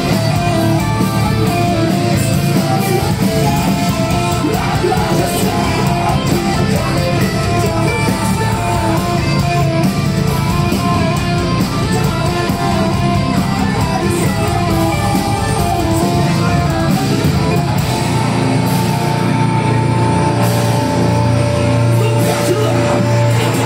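A heavy rock band playing live: distorted electric guitars, bass guitar, drums and sung vocals, loud throughout. In the last few seconds the band holds a long sustained chord.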